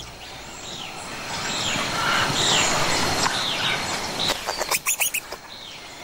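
Rainforest ambience: repeated short falling chirps from birds over a steady hiss, with a quick run of clicks about four and a half seconds in.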